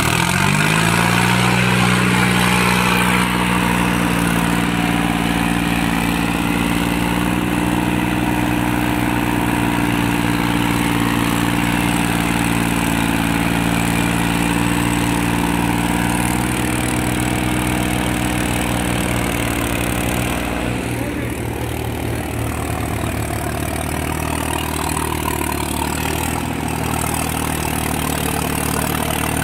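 Solis tractor's diesel engine working under load as it pulls a tined cultivator through hard, stony soil. The engine picks up speed in the first second, then runs steadily, and its note changes about twenty seconds in.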